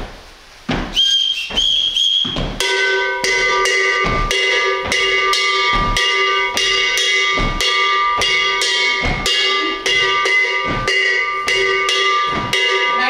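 Two short blasts on a whistle, then a gonguê, the large single iron bell of maracatu, struck with a wooden stick in its basic repeating rhythm, about two strokes a second, the bell ringing on between strokes.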